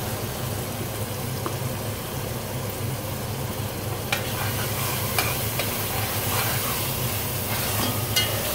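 Tomato and onion masala sizzling in an enamelled cast-iron pot while a metal spoon stirs it, with a steady low hum underneath. From about halfway through, the spoon clicks and scrapes against the pot a number of times.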